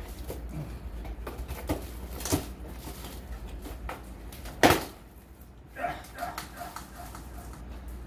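Cardboard box and plastic-wrapped pizza peel being handled: rustling and several knocks, the loudest a sharp knock a little past halfway. A short string of whining vocal noises follows.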